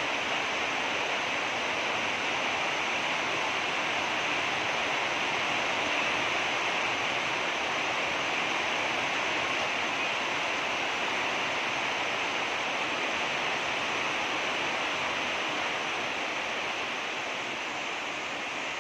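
Steady rushing hiss, even in level throughout, with no distinct knocks, calls or voices.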